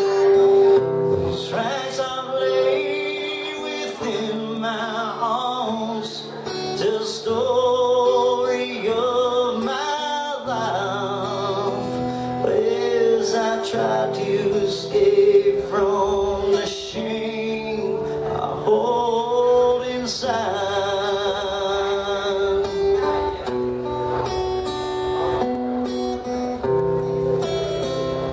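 A man singing into a microphone while strumming and picking a cutaway acoustic-electric guitar, a live solo performance.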